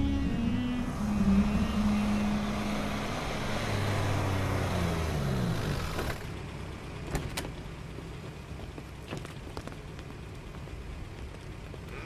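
Police van engine running as the van drives in, its pitch falling as it slows about five seconds in. Then quieter with a few short knocks.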